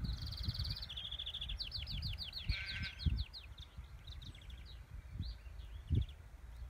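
A finch singing in a greenfinch-style song: quick high trills, then a fast run of descending notes with a buzzy wheeze about two and a half seconds in, followed by shorter twittering phrases. A low rumble and a few dull low thumps run underneath.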